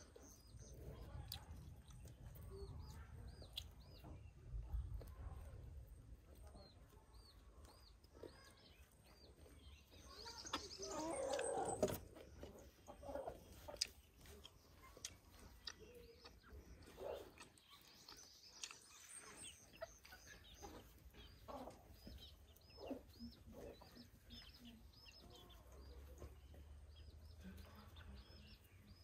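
Faint bird sounds: short high chirps repeating throughout, with chickens clucking. A louder noisy stretch comes about ten seconds in and ends in a sharp click near twelve seconds.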